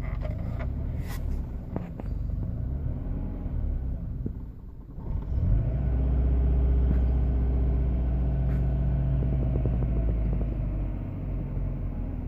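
1998 Subaru Forester's flat-four engine idling roughly. It dips briefly about five seconds in, then runs louder and steady for several seconds before easing back near the end.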